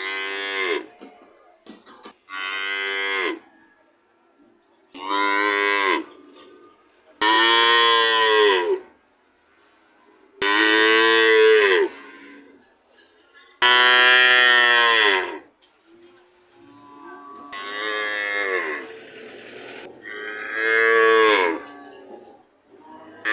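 Cattle mooing: a series of about eight loud moos, each one to two seconds long, with the pitch dropping at the end of each call and short pauses between them.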